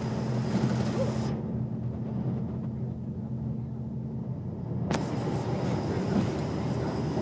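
Bus running, heard inside the passenger cabin: a steady low engine and road rumble with a low hum, and a single sharp click about five seconds in.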